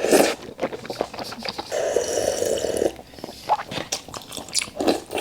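Eating sounds: wet mouth smacks and chewing, with one long slurp of noodles lasting about a second, about two seconds in.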